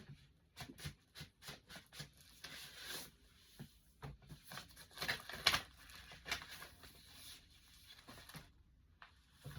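Faint, scattered rustling and light clicks of items and packaging being handled and checked over, with a few louder knocks about halfway through.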